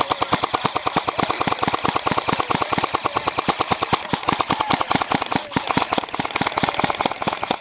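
Airsoft guns firing on full auto: a rapid, even train of sharp clicking shots, many per second.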